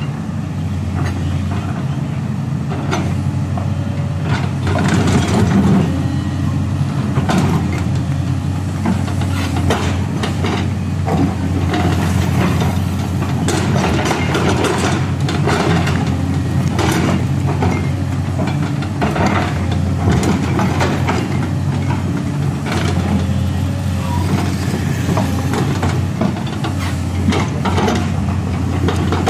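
LiuGong crawler excavator's diesel engine running steadily under load as the machine digs, with frequent short clanks and scrapes from the bucket and soil.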